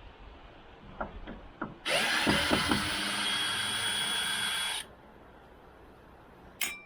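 Electric drill-driver running for about three seconds at a steady speed, backing screws out of the boat's fittings. Before it come a few light knocks of handling, and near the end there is one sharp click.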